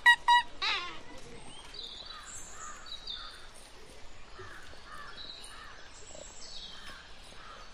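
Outdoor ambience of faint, distant children's chatter with birds calling. A voice trails off in the first second.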